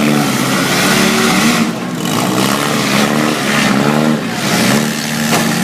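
Engines of four-cylinder demolition derby cars revving hard, their pitch rising and falling again and again over a steady wash of engine noise.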